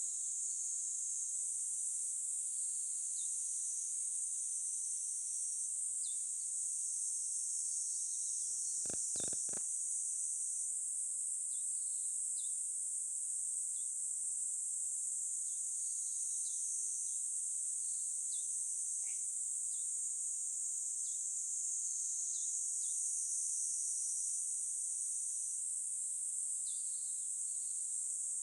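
Steady high-pitched chorus of insects such as crickets, with scattered short chirps and a quick run of four or five clicks about nine seconds in.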